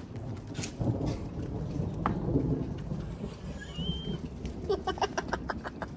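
Thunder rumbling low and rolling on, with rain falling. A short high chirp sounds about four seconds in, and a quick run of sharp clicks comes near the end.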